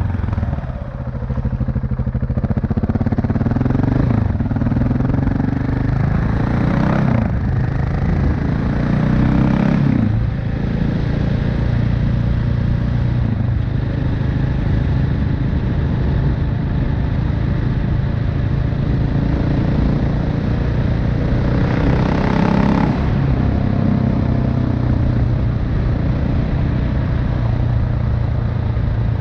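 KTM 690 Enduro R's single-cylinder engine and exhaust under way: the pitch climbs and drops back several times in the first ten seconds as it accelerates through the gears, then holds a steady cruising note, with one more short climb later on.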